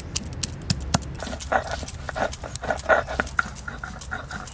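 Garlic cloves being crushed on a stone grinding slab with a stone muller (shil-nora). Sharp cracks as the cloves break open, then from about a second in a fast rhythm of gritty rocking strokes, about four a second.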